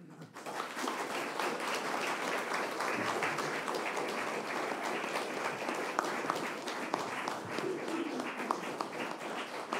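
Audience applauding, starting all at once and thinning into more separate claps near the end.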